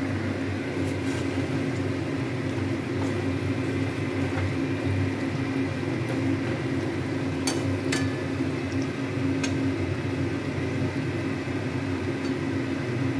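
A steady low hum with mustard oil bubbling around mango pickle in a steel kadai, and a few light metal clicks of the spatula near the middle.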